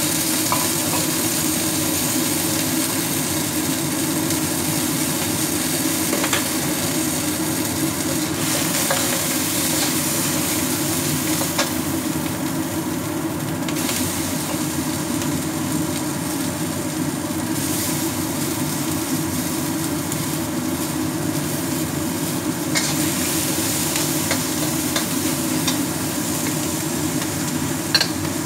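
Steady rushing, hissing noise of a wok of water on the boil over a gas burner. A few light metal clinks come from utensils and bowls, the sharpest near the end.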